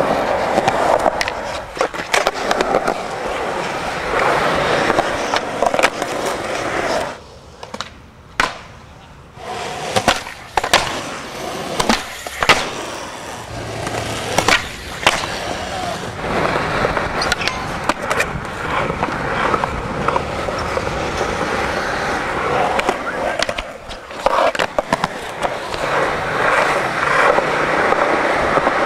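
Skateboard wheels rolling on concrete, broken by repeated sharp clacks of the board popping, grinding ledges and landing. About seven seconds in there is a quieter stretch of around two seconds.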